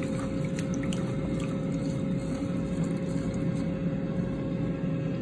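Rice being swished and rubbed by hand in water in a rice cooker's inner pot, with small splashes and drips. Underneath runs a steady low hum with a faint constant tone.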